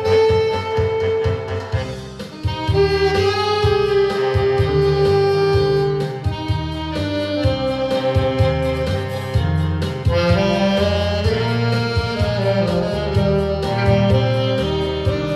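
Saxophone playing a melody of long held notes over a backing with bass and drums.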